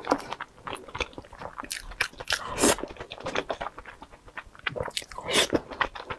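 Close-miked chewing and mouth sounds of someone eating red-braised pork belly, in irregular smacks. Louder ones come about two and a half seconds in and again near five and a half seconds.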